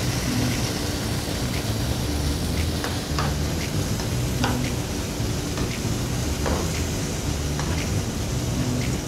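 Lamb, peppers and beef stock simmering and sizzling in a pot as they are stirred, a spoon clicking lightly against the pot now and then, over a steady low hum.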